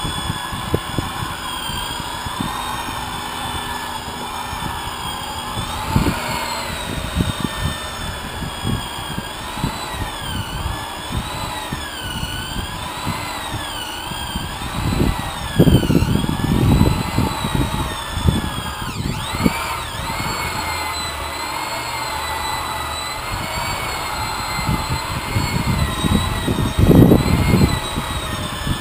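Electric polisher with a foam pad buffing a boat's painted hull: the motor whine wavers up and down in pitch as the pad is pressed and moved, over rubbing and knocking from the pad that gets louder about halfway through and again near the end.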